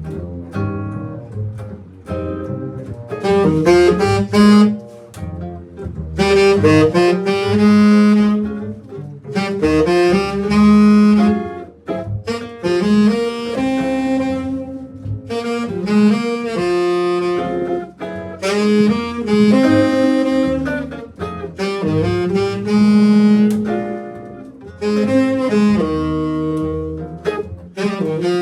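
Live band playing a tune in rehearsal: a wind instrument plays the melody in phrases of held notes over a bass line.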